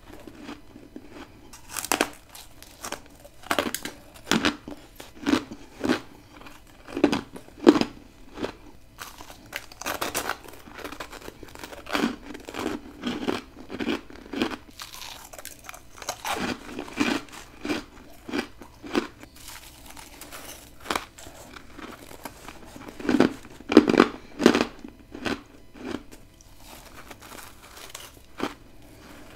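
Close-miked bites into freezer frost ice grown by a humidifier, crunching loudly in quick irregular clusters, with a run of the loudest bites near the end.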